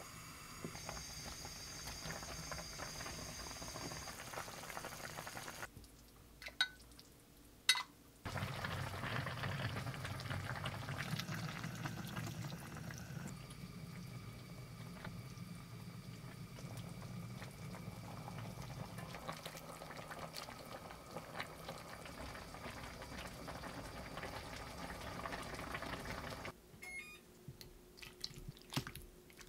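A pot of cola-braised chicken stew bubbling steadily at a simmer. A few light clicks near the end.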